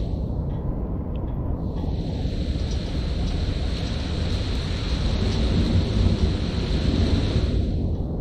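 Steady city rain with wind buffeting the microphone, under a low rumble that swells a little past the middle. The higher hiss thins out briefly at the start and again near the end.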